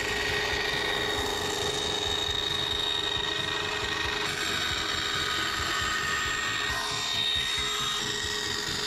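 Bandsaw running and cutting through a thin wooden sheet: a steady whine over the even noise of the blade in the wood.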